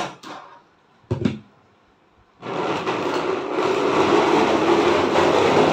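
Plastic stool pushed across a tiled floor, a steady grating scrape that starts about two and a half seconds in. A short thump comes about a second in.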